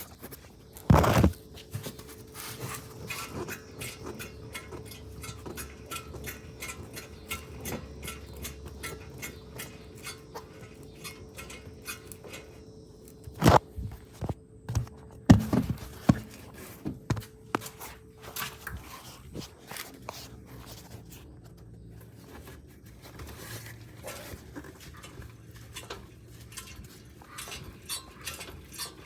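A Ford Fusion's unexplained noise: irregular rapid clicking and rattling, with a steady whine that stops about two-thirds of the way through, and a few loud thumps.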